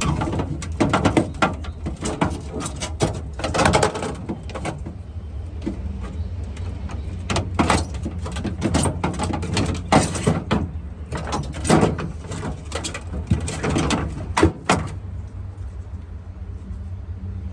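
Hands working on a refrigerator's parts: irregular clicks, knocks and plastic rattles over a steady low hum.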